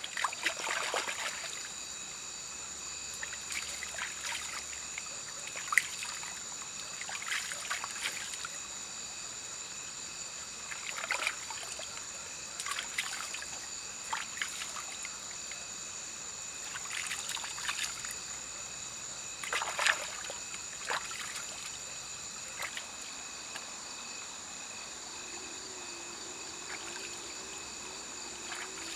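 Hands dipping and splashing in a shallow stream while picking out snails: short, irregular splashes and trickles, the loudest about 6 and 20 seconds in. Under them runs a steady high-pitched chorus of night insects.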